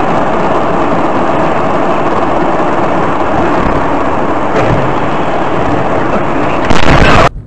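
Loud, steady road and engine noise inside a moving car, recorded by its dash cam. It swells louder for a moment near the end, as a lorry ahead crashes, and then cuts off abruptly.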